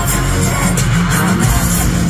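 Loud live pop concert music through an arena sound system, heard from the audience: a full band with heavy bass and drums hitting regularly, the singer's voice over it.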